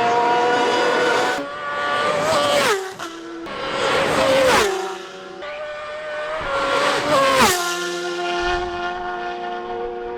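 Racing motorcycles at full throttle, three passes in quick succession. Each engine's pitch rises as it approaches, peaks in loudness, then drops sharply as it goes by; a lower, steady engine note trails away after the last one.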